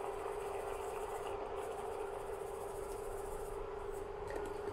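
Portable induction cooktop humming steadily on one tone under a pan of simmering peanut sauce, with a faint high hiss that stops near the end.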